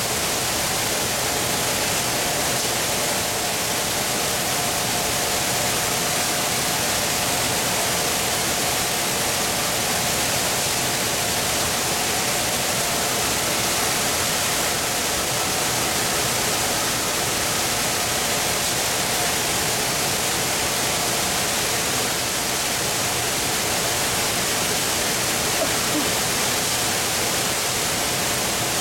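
Industrial cheese applicator running: a steady, even rushing noise with a faint hum through it.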